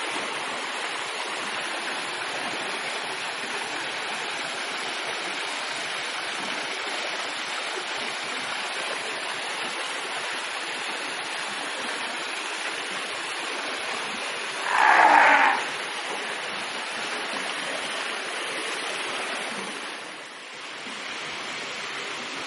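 Steady rush of water in a fur seal pool, with one brief louder sound about fifteen seconds in, and the rush easing slightly near the end.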